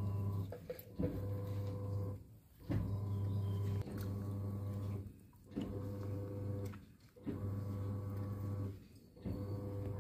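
A steady, low electric hum, cutting out briefly and coming back every second or two.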